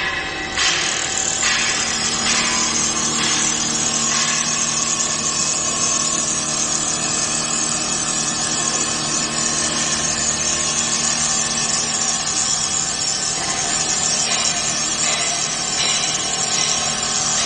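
Multihead CNC wood lathe machining wood: a steady motor hum under a hissing cutting noise that comes and goes in stretches of about a second, most clearly near the start and the end.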